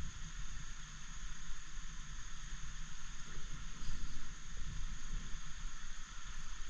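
Steady hiss of water rushing over a shallow river shoal around a kayak, with an uneven low rumble of wind buffeting the microphone.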